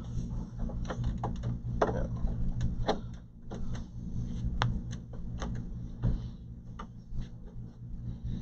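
Plastic pry tool working along the seam of a computer's plastic housing: irregular sharp clicks and snaps as the plastic flexes and the clips let go, over a steady low hum.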